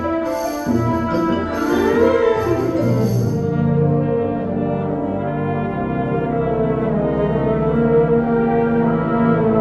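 Symphonic wind band playing sustained, brass-heavy chords over low held bass notes. A high, bright shimmer above the band stops about three and a half seconds in, leaving the held chords.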